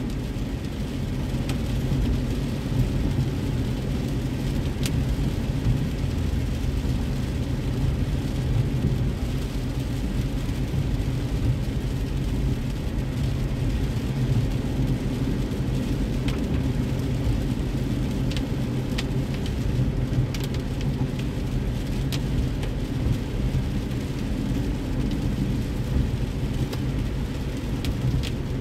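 Inside a moving car's cabin in heavy rain: a steady low rumble of road and rain noise, with scattered light ticks of drops hitting the windshield.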